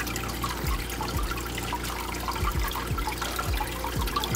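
Fish feeding frantically at the water surface: about ten low, quick gulping plops and splashes, over a steady trickle of water.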